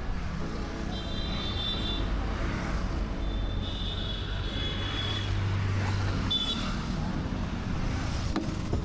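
Steady low rumble of a moving vehicle, with several short high-pitched squeals over it.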